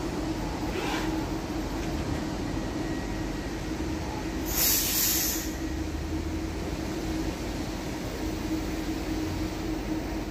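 Electric commuter train at the platform with a steady hum, and a short burst of hiss about halfway through.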